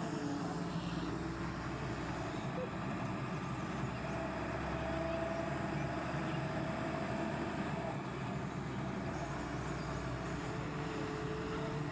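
Excavator's diesel engine running steadily, with a faint whine over it.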